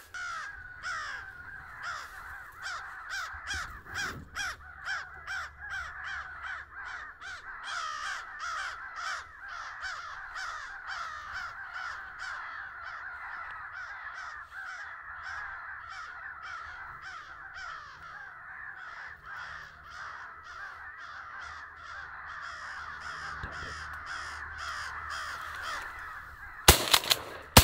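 Many crows cawing without a break, a dense overlapping chorus of caws. Near the end two gunshots go off close together, much louder than the calling.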